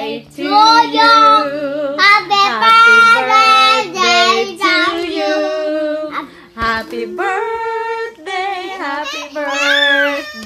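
A young child singing loudly in long held notes, with a woman's voice singing along.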